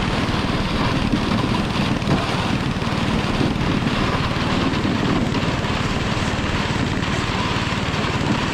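A motor engine running steadily and loudly, then cutting off suddenly at the end.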